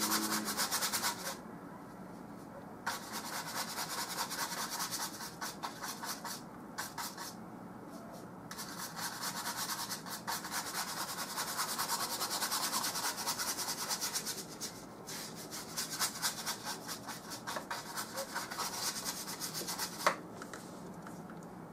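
Paintbrush scrubbing oil paint onto a canvas in quick back-and-forth strokes, in several runs with short pauses between them. A single sharp tick near the end.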